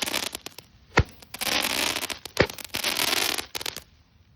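Handheld firework going off: a dense crackling hiss of sparks in two stretches, each broken by a sharp pop, then dying away near the end.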